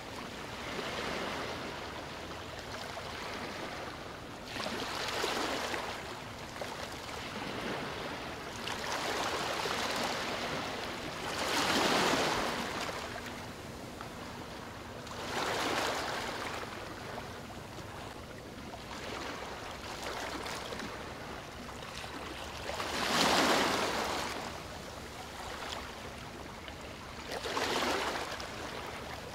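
Rushing water, a steady wash that swells louder and eases off every few seconds, as waves washing in do.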